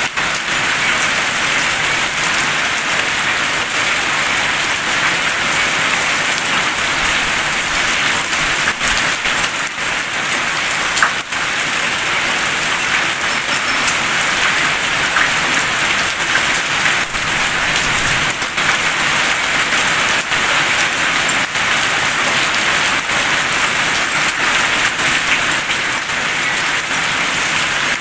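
Heavy rain falling steadily on tiled roofs and wet paved ground, an even hiss with a few sharper close drop ticks.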